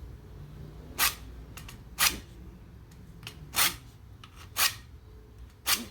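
Hand file rasping on the washing machine part that holds the drive block: about five firm strokes, roughly one a second, with lighter strokes between. He is filing the bent-in sides straight because they let the drive block jump out of place so the washer won't spin.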